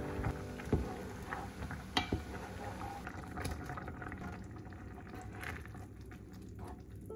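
Rice congee bubbling on the boil in a pot, with two sharp utensil knocks in the first two seconds.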